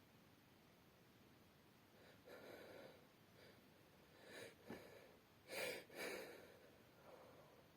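A woman's quiet, breathy catching inhales building up to a sneeze, the loudest burst coming about five and a half seconds in as a quick double 'ah-choo', followed by a faint breath.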